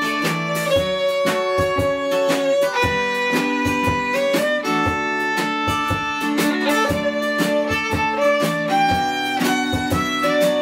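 Fiddle bowing a melody of held notes over a strummed acoustic guitar.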